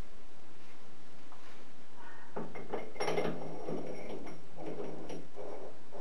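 Metal clinking and rattling as a part is handled and fitted into the three-jaw chuck of an Optimum D180x300 mini metal lathe, starting a little over two seconds in with a cluster of sharp clicks.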